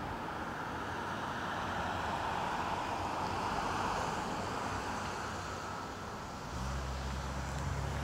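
Road traffic: a car passing on the adjacent road, its tyre noise swelling through the middle and fading, then a low steady hum from about two-thirds of the way through.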